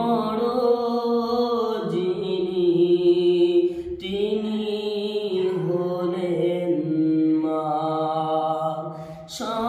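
A man singing a Bangla gojol (Islamic devotional song) solo, holding long drawn-out notes that step and slide from pitch to pitch, with a short breath about nine seconds in.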